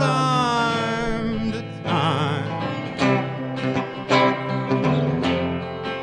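Live band music: two male voices singing long notes with vibrato in the first couple of seconds, then acoustic and electric guitars strumming in a steady rhythm.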